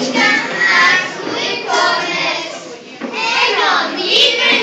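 A group of children singing together in phrases, high young voices in a large hall.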